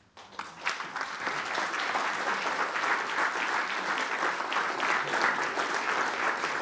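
Audience applauding, rising from silence within about a second to steady clapping.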